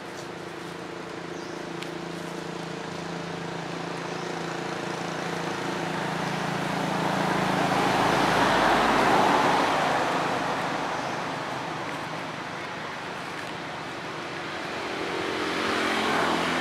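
Traffic noise: a steady engine hum, then a motor vehicle passing by, growing louder to a peak about halfway through and fading, with another vehicle swelling near the end.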